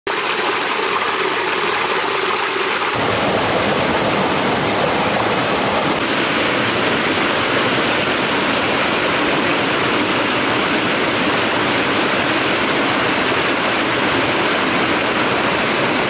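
Water pouring through the sluice gates of a small concrete dam and rushing down a concrete chute: a loud, steady rush and splash that changes character abruptly about three seconds in.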